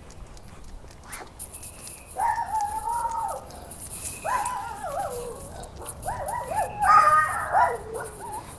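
Puppy whining in drawn-out calls. There is one long call about two seconds in, another around four seconds, then a run of shorter calls near the end.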